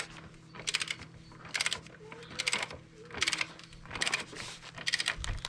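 Ratchet of a click-type torque wrench clicking in short strokes, about one every 0.8 seconds, as a nut is run down a long thread that has not yet begun to tighten.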